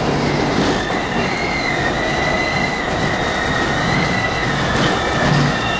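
R32 subway car running along the track, heard from inside the car: a steady rumble of wheels on rail, with a high wheel squeal that sets in about a second in and fades near the end.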